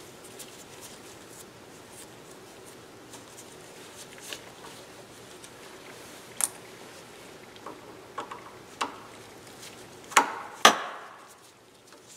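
Tools and heater parts being handled on a workbench: scattered small clicks and knocks over a faint steady hum, then two loud knocks about ten seconds in, the second ringing briefly.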